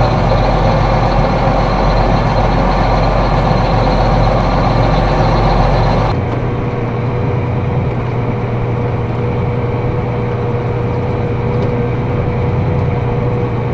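John Deere 8200 tractor's diesel engine running steadily. About six seconds in, the sound changes abruptly to a lighter engine note with a steady whine over it.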